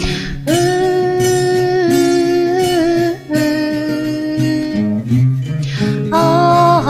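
Instrumental break of a soft acoustic song: acoustic guitar accompaniment with long, held wordless melody notes over it, a short pause in the melody about halfway through.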